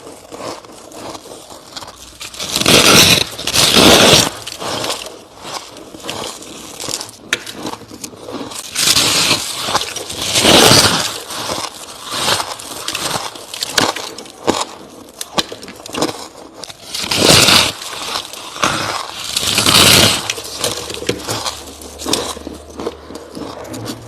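Close-up biting and chewing of soft frost and crushed ice. A loud, crunchy bite comes every few seconds, with quieter crackling chews between.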